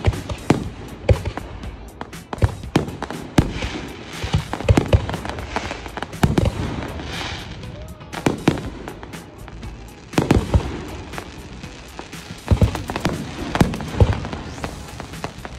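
Fireworks display: aerial shells bursting in irregular quick succession, often one or two a second, with brief lulls between the volleys.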